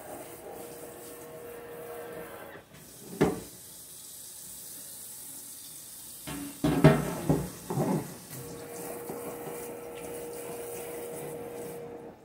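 Tap water running into a sink. There is one sharp knock about three seconds in and a quick run of loud clattering knocks around seven seconds, from things being handled in the sink.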